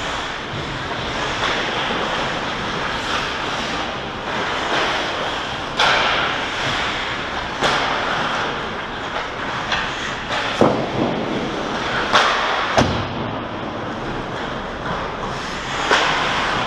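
Ice hockey play: a steady scraping hiss of skates on ice, broken by about six sharp knocks of sticks and pucks, two of them close together past the middle.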